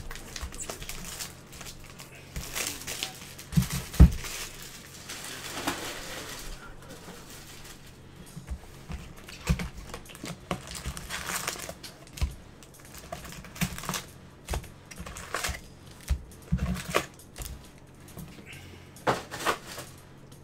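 Foil trading-card pack wrappers crinkling and tearing as packs of Bowman baseball cards are opened and handled, with scattered thumps against the tabletop, the loudest about four seconds in.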